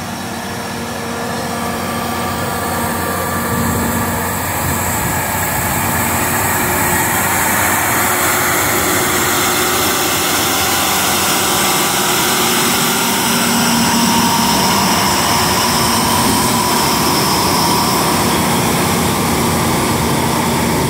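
Mount Washington Cog Railway locomotives running close by: a steady engine drone with a strong hiss across the high end. It builds over the first several seconds and then holds steady.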